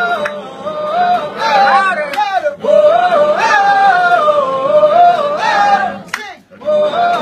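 Men singing a song together without instruments, in sung phrases of two to three seconds with held, gliding notes and short breaks between them.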